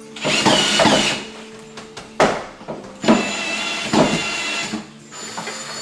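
Cordless drill with a long extension bit driving screws up through an under-cabinet range hood into the cabinet: two runs of the motor with a whine, about a second and nearly two seconds long, with a sharp knock between them.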